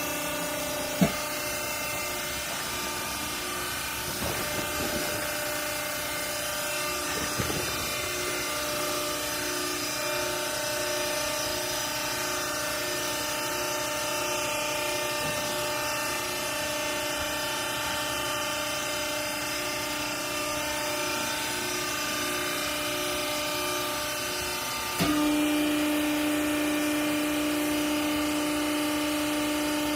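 Hydraulic baling press running with a steady motor-and-pump hum, with a sharp click about a second in. Near the end there is a knock, and the hum becomes louder on a strong low tone.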